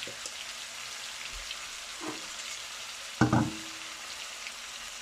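Tandoori-marinated chicken legs frying in oil and butter in a pan, a steady sizzling hiss. A faint knock comes about two seconds in, and a louder sharp knock with a short ring about three seconds in.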